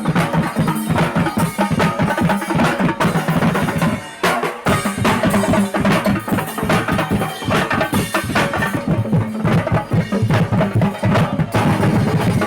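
Parade drums playing a fast, dense marching beat with bass drum and sharp wood-block-like clicks, briefly breaking off about four seconds in.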